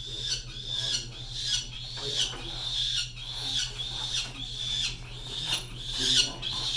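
A peregrine falcon chick calling over and over, short high-pitched squawks at a little more than one a second, loudest near the end.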